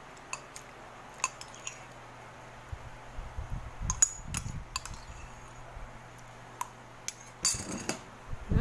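Metal spoon stirring a thick, creamy fruit salad in a glass bowl, clinking sharply against the glass at irregular moments, with a longer, rougher scrape near the end.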